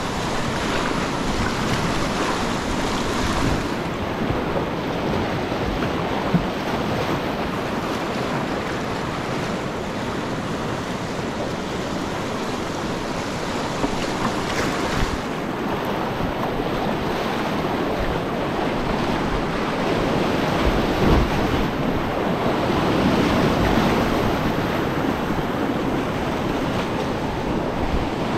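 Rushing whitewater of a steep mountain creek rapid, a steady roar of churning water around a kayak, with a surge of water washing over the camera near the end.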